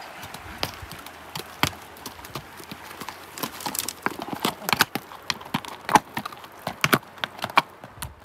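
Horse hooves clip-clopping at a walk on a rocky dirt trail: irregular sharp clacks of shod hooves on stone and hard ground, getting louder and closer together from about three seconds in.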